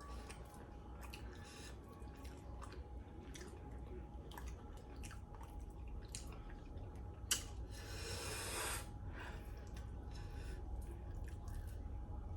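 Wet chewing and small mouth clicks of someone eating chicken wings coated in spicy sauce. About seven seconds in there is a sharp click, followed by a hissing rush that lasts about a second.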